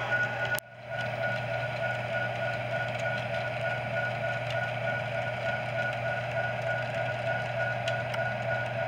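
Model trains running on a layout: a steady motor hum with a thin high whine over the rumble of wheels on track. The sound drops out briefly about half a second in, then goes on.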